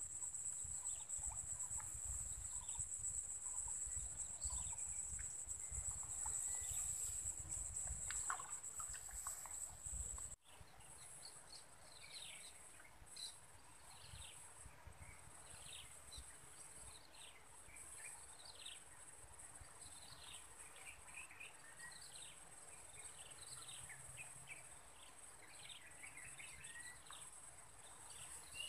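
Outdoor swamp ambience: a steady high-pitched insect drone, with a low rumble for the first ten seconds. After a sudden cut, many short falling bird chirps sound over the insect drone.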